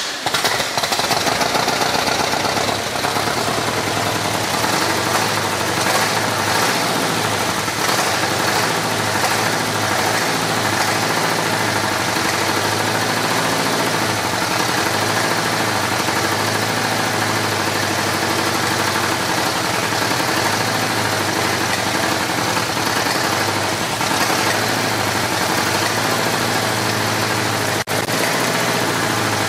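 Chevy 350 small-block V8 in a Farmall H tractor running roughly through tall open exhaust stacks on its first start after sitting for years, with a lot of popping. It runs very poorly, which the owner thinks sounds timing-related or like a valve down.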